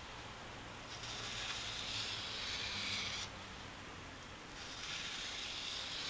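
Knife blade drawn slowly along abrasive sandpaper in long sharpening strokes, a dry hissing scrape about two and a half seconds long, twice, with a short pause between.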